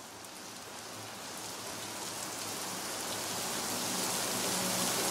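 Steady rainfall fading in, growing gradually louder. About three and a half seconds in, low held musical notes begin to sound softly beneath it.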